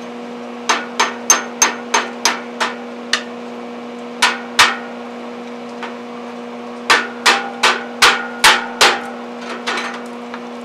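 Hammer striking a welded steel pedal shaft to straighten it, in three runs of quick blows: about seven, then two, then about seven more. Some strikes have a short metallic ring, and a steady low hum runs underneath.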